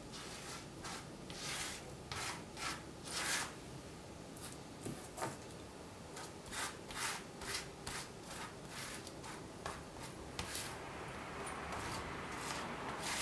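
A paint brush scrubbing and dabbing thick paint onto textured paper: a run of short, scratchy strokes, a few a second, turning into steadier rubbing near the end.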